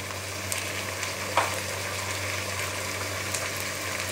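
Sliced sausages and chopped vegetables frying in a stainless steel pan with a steady sizzle, and a light click about a second and a half in.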